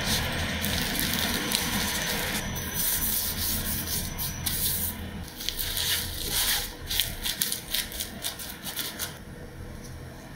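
Dry roasted seaweed (gim) rustling and crinkling as hands roll it around a gimbap roll on a wooden cutting board, with a run of quick sharp crackles in the second half before it goes quieter.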